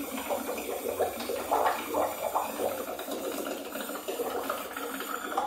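Air from a balloon rushing out through a straw set under the bathwater, bubbling and churning steadily as it drives a small balloon-powered boat along. The bubbling cuts off suddenly at the very end as the balloon empties.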